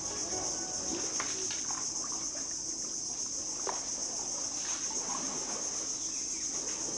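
Steady, high-pitched drone of insects, with a few faint short calls and knocks scattered through it.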